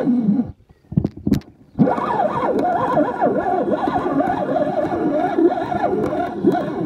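Carp reel's drag buzzing as a hooked carp pulls line off the spool, its pitch wavering up and down with the fish's runs. It breaks off for about a second with a couple of clicks, then buzzes steadily again.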